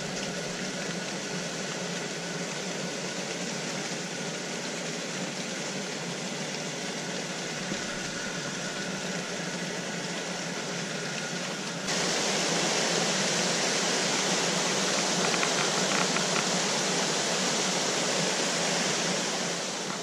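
Steady air noise of greenhouse fans with a faint low hum, stepping up suddenly to a louder level about twelve seconds in.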